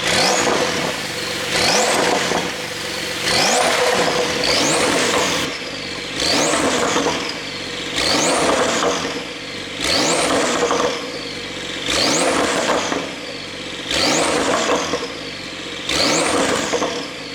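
Porsche 911 Carrera 4's twin-turbo flat-six revved in a stationary series of blips, about one every one and a half to two seconds, each rising sharply and falling back, through exhaust flaps held fully open by an ECU tune, with pops on the overrun.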